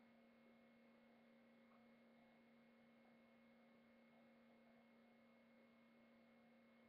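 Near silence: a faint, steady electrical hum with low hiss and no other events.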